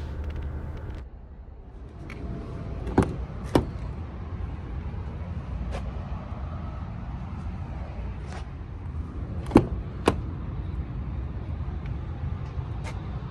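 Low steady outdoor rumble with a handful of sharp clicks and taps at irregular intervals.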